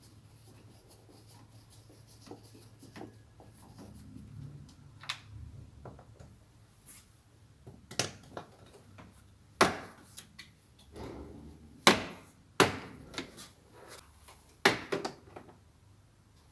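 Plastic car interior trim being handled and pulled loose: a scattered series of sharp clicks and knocks with quieter rubbing between, the loudest in the second half.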